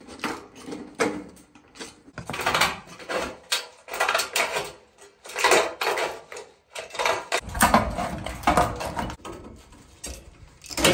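Hand tin snips cutting through a corrugated steel roofing panel: irregular crunching snips, about two a second, with the thin sheet clattering as it is worked.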